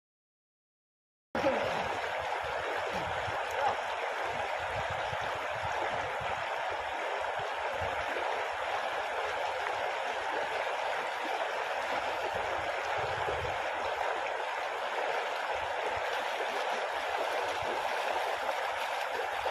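Shallow river rushing steadily over stones. It starts abruptly after a silent gap of about a second.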